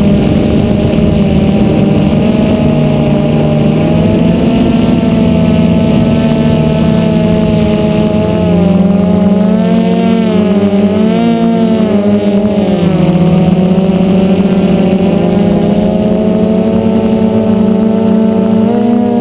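DJI Flame Wheel F450 quadcopter's motors and propellers whirring close to the onboard camera, a loud hum made of several pitches. The pitches hold steady, then waver up and down together from about eight to thirteen seconds in as the drone manoeuvres.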